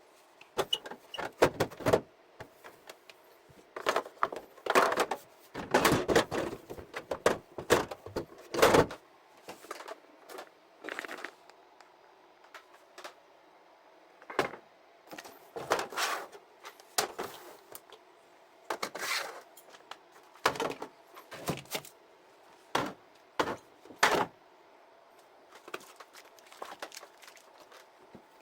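Irregular knocks, clunks and rattles of containers and refrigerator parts being handled and set down during fridge cleaning. The clatter is thickest over the first several seconds and then thins to scattered single knocks.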